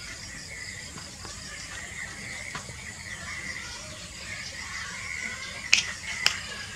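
White domestic rabbit eating fresh leafy greens with stems, faint chewing and nibbling over a steady background hiss. Near the end come two sharp clicks about half a second apart.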